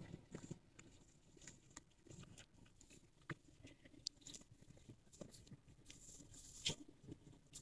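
Near silence, broken by a few faint, scattered clicks and rustles.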